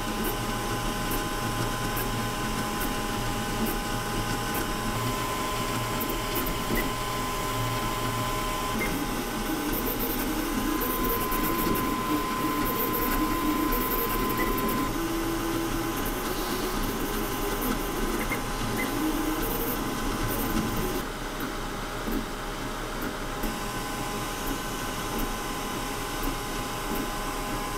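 Anycubic Kobra S1 CoreXY 3D printer printing at high speed: its stepper motors whine and warble in constantly shifting pitches as the print head darts about, over a steady whir from the printer's fans.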